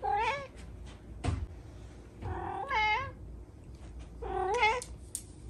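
A domestic cat meowing three times in short, chatty meows whose pitch bends up and down, one at the start, one in the middle and one near the end. A single short knock sounds about a second in.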